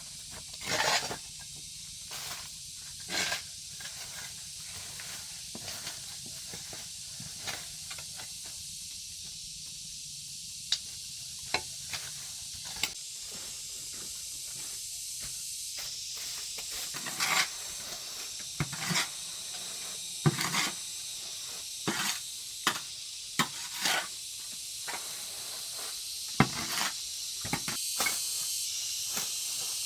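Irregular knocks and clatters of things being handled and moved during house cleaning, over a steady high hiss.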